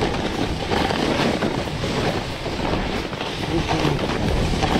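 Splitboard riding down a snow slope: the board hissing and scraping over the snow without a break, with wind noise on the microphone.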